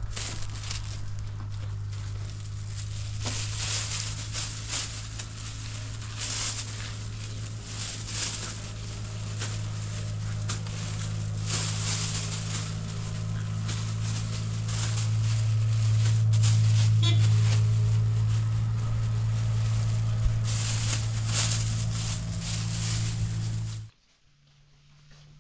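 Thin plastic produce bags rustling and crinkling in short bursts as greens and tomatoes are bagged by hand, over a steady low mechanical hum that grows louder midway and cuts off suddenly near the end.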